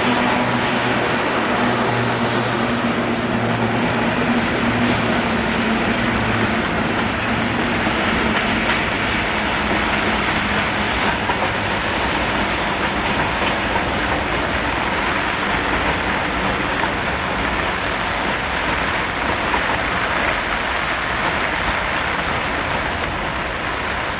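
A train running on the rails, with a steady rolling noise throughout. A low engine hum sounds at the start and fades away over the first several seconds.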